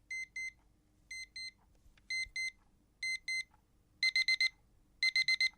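Digital alarm clock beeping: pairs of short high beeps about once a second, switching about four seconds in to louder, faster bursts of four beeps.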